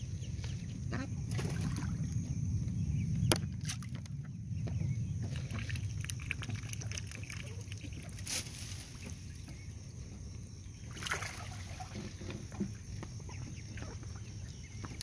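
Mallard hen quacking now and then beside her ducklings, over a steady low rumble, with a sharp click about three seconds in.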